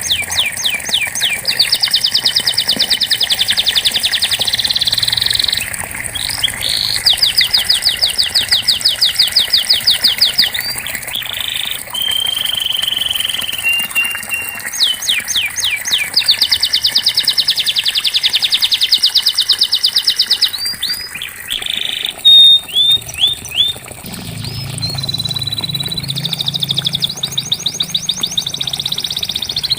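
Domestic canary singing: long rolls of rapid repeated notes, broken by short held whistled notes and brief pauses. A low hum joins in near the end.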